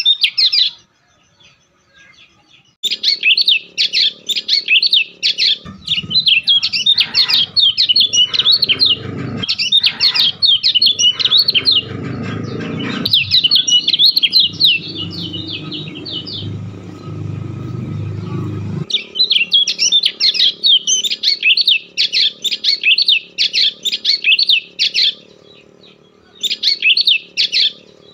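A bird chirping rapidly and repeatedly in long runs, after a short pause near the start. Through the middle stretch a low rumbling noise runs underneath and then cuts off suddenly.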